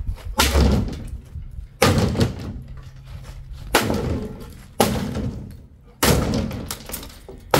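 Sledgehammer striking the sheet-metal rear body of an old army jeep: six heavy blows one to two seconds apart, each ringing off briefly, as the panel is beaten loose.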